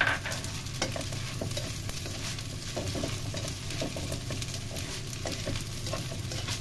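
Rice vermicelli with vegetables and egg frying in a speckled nonstick wok and being tossed with a black plastic spatula: a steady sizzle under irregular scrapes and light knocks of the spatula against the pan, with a sharper knock right at the start.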